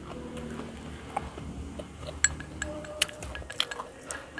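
Wooden chopsticks tapping and clicking against a small ceramic bowl while eating, a few light scattered clicks.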